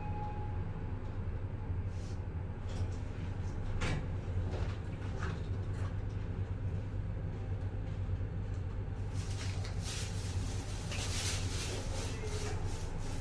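Inside a Toshiba lift car: a steady low hum as the car rises and stops at a floor, a sharp click about four seconds in, then the doors sliding with a few seconds of rustling and clatter near the end.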